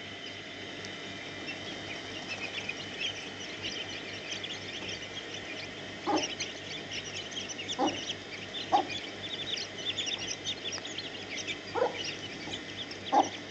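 A brood of chicks peeping nonstop with many short, high cheeps as they feed around their mother hen. Near the middle and end the hen gives a few short, lower clucks.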